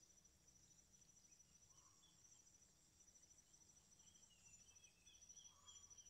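Near silence with a faint, steady, rapidly pulsing insect trill high in pitch, and a few faint short chirps in the second half.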